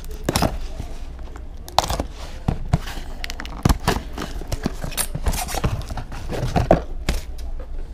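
A cardboard postal box being handled and opened on a workbench: irregular scrapes, taps and knocks as it is turned over and worked at by hand.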